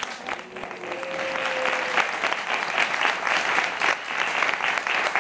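Audience applauding, many hands clapping at once, swelling over the first two seconds and then holding steady.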